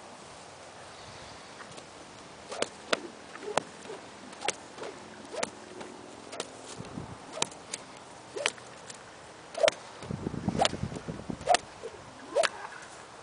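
A horse-training stick and string being slapped down around a horse: sharp single slaps at uneven intervals, about one a second, starting a few seconds in. About ten seconds in the slaps come closer together, mixed with softer low thuds.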